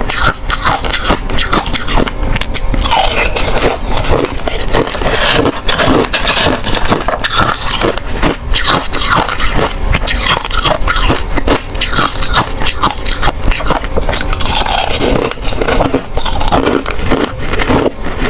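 Ice being crunched and chewed close to the microphone: a dense, continuous run of sharp cracks and grinding crunches.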